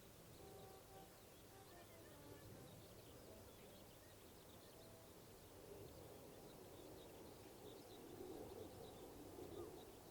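Faint outdoor nature ambience: distant small birds chirping now and then over a low, even background murmur that grows slightly louder in the second half.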